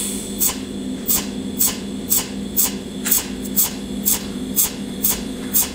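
Cold welding machine firing short arc pulses, an evenly spaced crackle about twice a second, as it spot-tacks filler wire along the seam of a thin steel tube. A steady low hum runs underneath.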